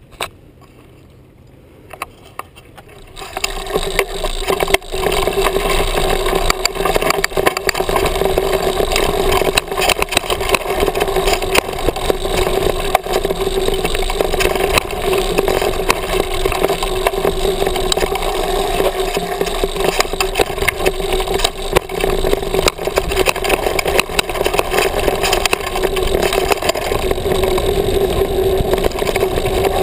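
Mountain bike riding down a rocky dirt trail, heard from a helmet-mounted GoPro: a steady hum and rumble of tyres rolling over hard-packed dirt and gravel, with constant rattling clicks and knocks from bumps. It starts about three seconds in, after a quieter start with a couple of clicks.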